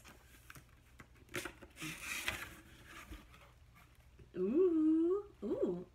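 Cardboard box lid lifted open with a brief rustle of cardboard and paper filler, then, about four seconds in, a drawn-out woman's "ooh" of delight, the loudest sound.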